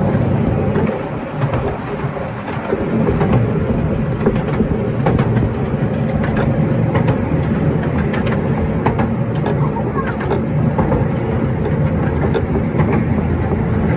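Narrow-gauge steam train running, heard from aboard the carriage behind the tender: a steady rolling rumble with irregular sharp clicks of the wheels over the rail joints.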